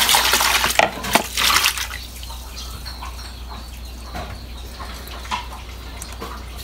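Hands swishing and splashing sea grapes (lato seaweed) in a plastic tub of water while washing them. The splashing is heavy for the first two seconds, then settles into soft trickles and small splashes.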